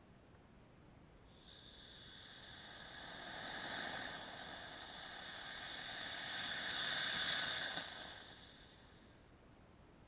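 Homemade solid-fuel rocket motor in a cardboard firework tube burning with a steady, fairly faint hiss. It starts about a second and a half in, swells twice and dies away near the end.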